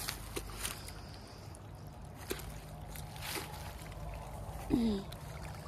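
Small creek trickling, with a few scattered light clicks and rustles from footsteps in wet undergrowth.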